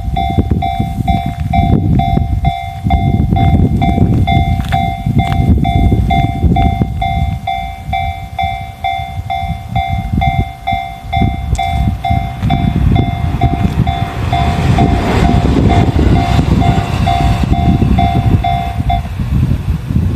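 Level crossing warning bell ringing in rapid even dings while a train rumbles past over the rails, with a rising rail hiss in the second half; the bell stops about a second before the end.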